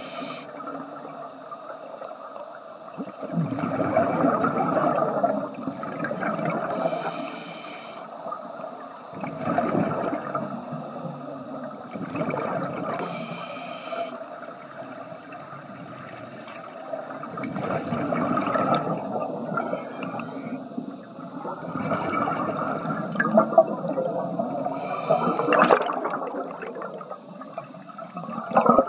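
Scuba diver breathing through a regulator underwater: a short hiss of each inhalation about every six seconds, followed by the rushing, bubbling surge of exhaled air.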